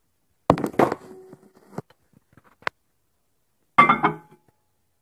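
A bowl of chocolate chips being put into a microwave oven: several hard thunks and knocks about half a second to a second in, a click near the middle, then a ringing clink as the bowl is set on the glass turntable.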